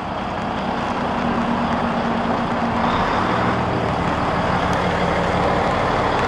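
Traffic noise on a wet city street, with a steady low engine hum from a large truck.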